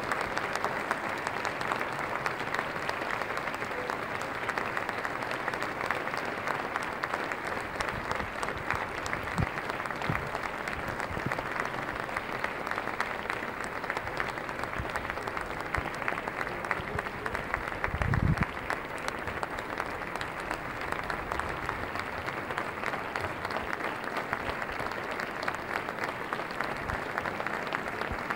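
Theatre audience applauding steadily, a dense wash of many hands clapping. A brief low thump comes about eighteen seconds in.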